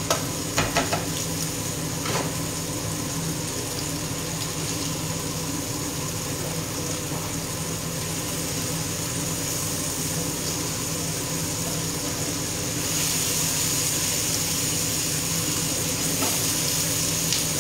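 Octopus, zucchini and cherry tomatoes sizzling steadily in oil in a frying pan. The sizzle grows louder and brighter about thirteen seconds in, with a few light clicks near the start.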